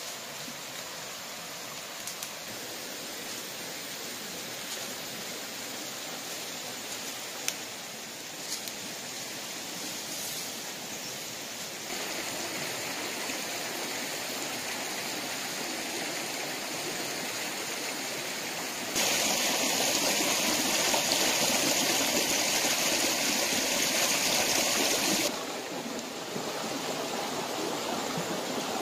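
Shallow stream running over rocks: a steady rush of water that grows louder about twelve seconds in, is loudest for about six seconds from roughly the nineteenth second, then eases back. A few faint clicks come in the first ten seconds.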